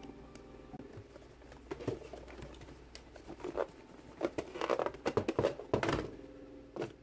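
Cardboard packaging being handled: rustling, scraping and light tapping of a tablet box's white cardboard insert tray, in an uneven run of louder rustles from about two to six seconds in.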